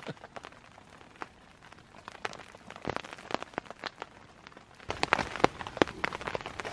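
Raindrops tapping irregularly on the tarp shelters, growing denser and louder in the second half.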